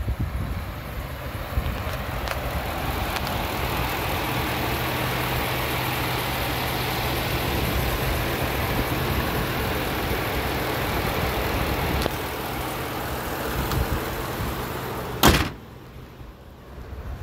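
A 2010 Ford F-150's V8 engine idling steadily with the hood open. About fifteen seconds in, the hood is slammed shut with one loud bang, and the engine is muffled after that.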